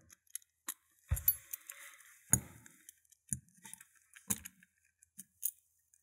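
Small metal parts of a disassembled Capitol Industries Defiant magnetic padlock clicking and clinking as they are handled: the lock's plates and tiny magnetic rotor discs knocked and set against each other. Irregular, about a dozen separate clicks, the loudest about two seconds in.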